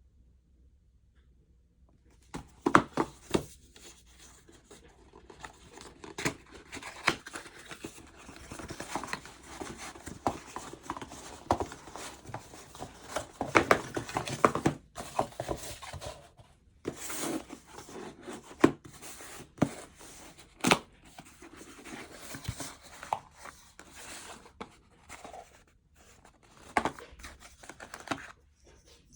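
Cardboard and paper packaging being opened and handled: rustling and tearing with many sharp clicks and knocks, starting about two seconds in.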